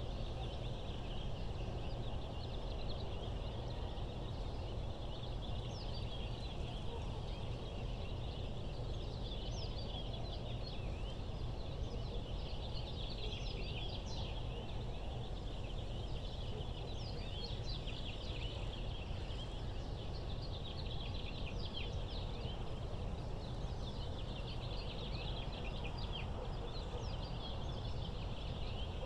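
A dense chorus of many birds chirping, a mass of quick high chirps that swells and fades in waves, over a steady low hum.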